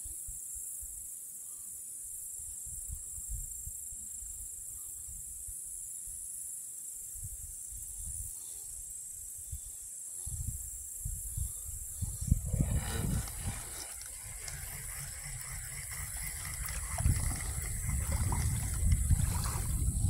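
Wind buffeting the microphone in uneven low gusts over a steady high hiss, the gusts growing stronger from about twelve seconds in.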